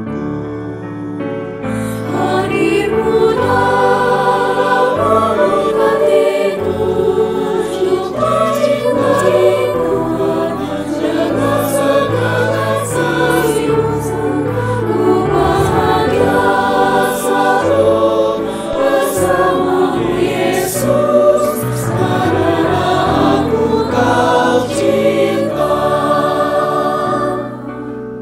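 Mixed choir of women's and men's voices singing a hymn in Indonesian, fuller from about two seconds in, the final phrase dying away near the end.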